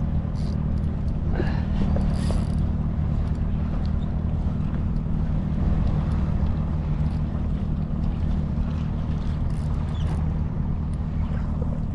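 Evinrude outboard motor idling with a steady low hum, under wind and water noise.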